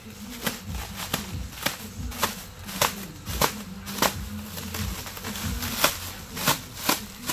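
Bubble wrap and plastic stretch wrap being pulled and torn off by hand, crinkling with many sharp, irregular crackles and snaps, over a low steady hum.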